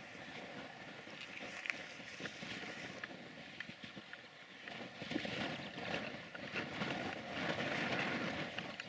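Distant steam locomotive working with its train, the sound swelling in the second half.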